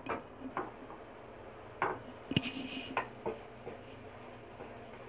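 Wooden spatula scraping and knocking against a nonstick frying pan while stirring cashews and raisins frying in ghee. Irregular scrapes and taps, the loudest about two and a half seconds in, die away after about three and a half seconds.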